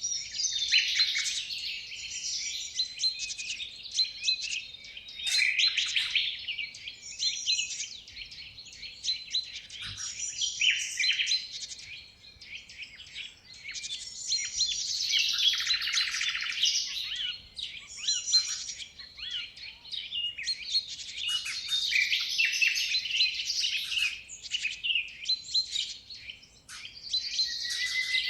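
Many birds chirping and chattering together in dense, overlapping calls that swell and fade every few seconds.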